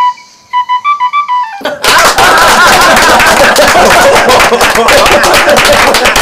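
A short run of stepped electronic beeps, then loud upbeat music with a fast, busy beat starts about two seconds in.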